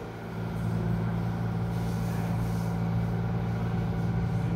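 Excavator's diesel engine running, rising in level about half a second in and then holding a steady drone as the machine works.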